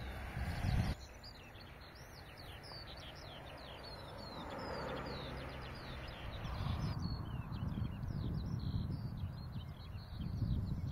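Small birds chirping and singing, many short sliding notes over and over, over a low outdoor rumble that grows louder in the second half.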